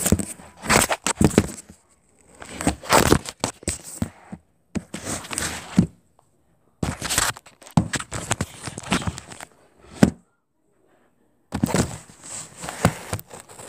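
Handling noise from a handheld camera's microphone rubbing and knocking against clothing: bursts of rustling and knocks with short silences between them.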